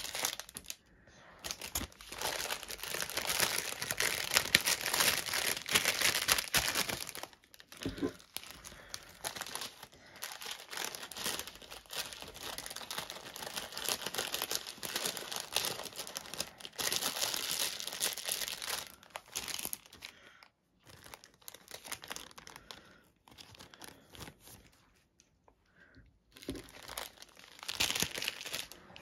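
Clear plastic bags and plastic sheeting crinkling and rustling as they are handled and moved, in stretches broken by short pauses.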